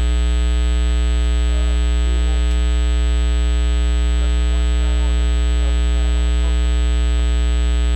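Loud, steady mains-type electrical hum and buzz with many overtones, from the Crown CSC-850F boombox's amplifier, with only faint program sound showing beneath it. It is the amplifier noise fault that got the set returned.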